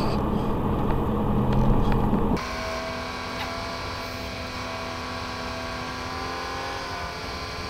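Lorry engine and road noise heard inside the cab while driving, a steady drone. About two and a half seconds in it changes abruptly to a quieter, steady drone with a higher hum.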